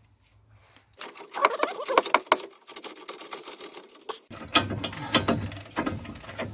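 Socket ratchet wrench clicking in quick runs as it winds out the brake caliper carrier bolts, starting about a second in.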